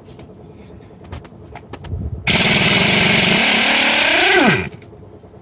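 Impact wrench hammering a wheel bolt loose in one burst of about two seconds; its motor winds down in pitch as it stops. A few light clicks come just before, as the socket goes onto the bolt.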